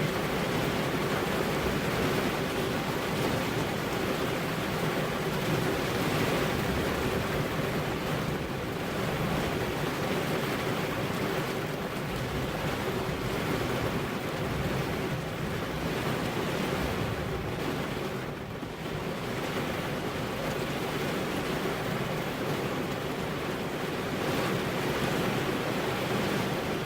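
Steady rainfall, a continuous even hiss with gentle swells in level.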